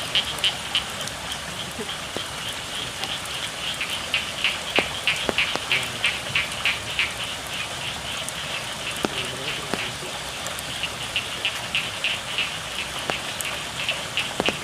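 Frogs calling in a rice paddy in the rain: a fast series of high calls, about four a second, in loud runs at the start and again around the middle, over the steady hiss of rain. Now and then a sharp tap sounds, such as a drip hitting something.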